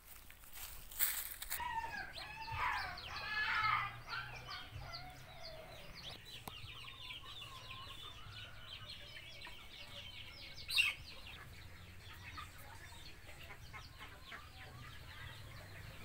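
A flock of domestic ducks quacking and chattering, many short calls overlapping. There are two sharp knocks, about a second in and near eleven seconds.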